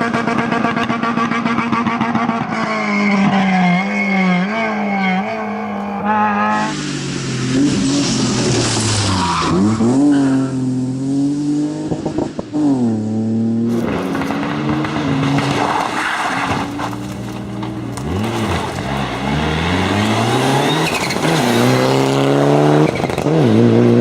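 Rally car engines at full stretch on a stage: pitch climbing hard, then dropping sharply on each gear change and on lifting off for corners. The sound comes as several cars or passes in succession.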